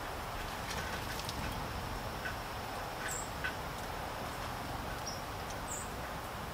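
Steady patter of rain, with scattered small clicks and a few brief, high bird chirps about three and six seconds in.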